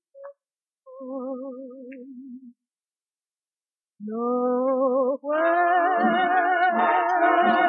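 Music from a 1943 V-Disc 78 record: a slow melody line with a wavering vibrato, a pause of about a second and a half, then sustained wavering chords that swell in and fill out.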